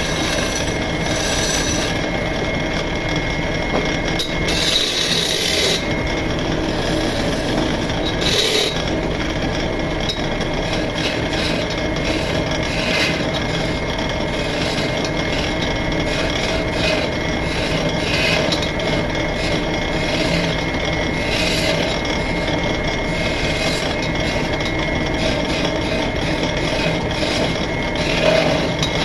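Wood lathe running steadily while a turning chisel cuts and scrapes the spinning wooden cot leg, with a few louder cuts around five seconds in, at about eight seconds and near the end.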